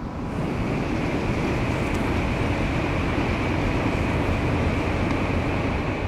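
Shinkansen bullet train passing at high speed on an elevated viaduct: a loud, steady rush of air and wheel rumble with a hiss on top. It surges in at the start, holds, and begins to ease near the end.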